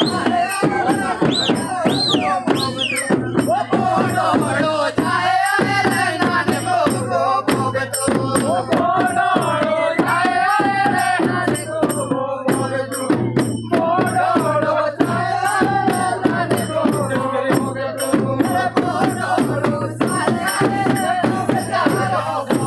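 Live Jaunsari folk dance music: dhol and damau drums beaten in a steady rhythm while a group of men sing together. A few short high whistles cut through in the first three seconds.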